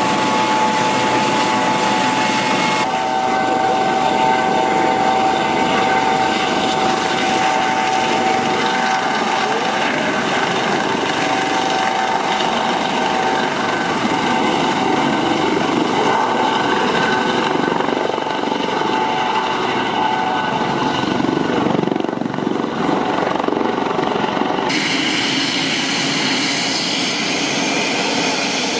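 U.S. Coast Guard HH-65 Dolphin helicopter running its twin turbine engines with the rotor turning and lifting off into a hover, a steady whine over rotor noise. About 25 s in the sound changes to a jet airliner's engines as it taxies.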